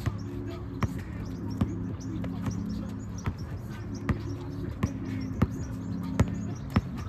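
Basketball being dribbled, with sharp bounces at a steady rhythm of about one every three-quarters of a second, over a steady low hum.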